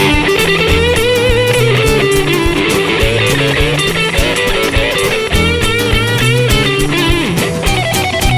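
Rock band playing an instrumental section with drums, bass guitar and electric guitar, under a melodic lead line that wavers in pitch.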